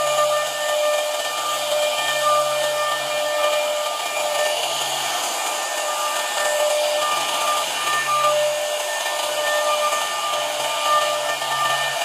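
CNC router spindle running a wide profile cutter through solid wood, milling a moulding groove: a steady high whine over a hiss of cutting. The whine's tones fade in and out every second or two.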